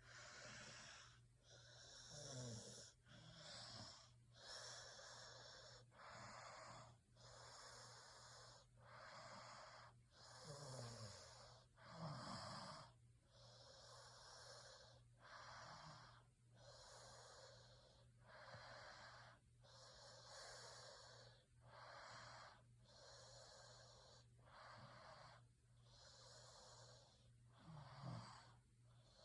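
Faint snoring: hissy, wheezy breaths about once a second, with a few short low grunts that fall in pitch.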